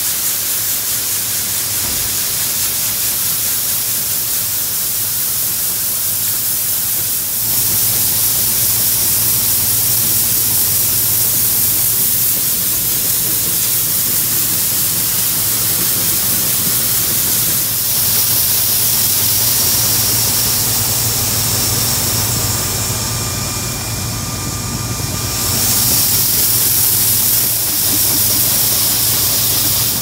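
Case IH 2366 combine harvester running steadily: a constant low engine hum under a loud hiss, stepping up in level about seven seconds in.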